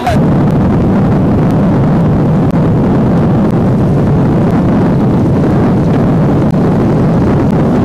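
Loud, steady rushing noise of wind buffeting a camcorder microphone aboard a moving boat, with no distinct pitch.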